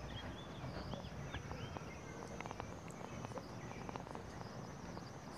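Outdoor ambience: small birds chirping in short rising and falling notes during the first second and a half, over a steady high hiss, with a run of light clicks in the middle.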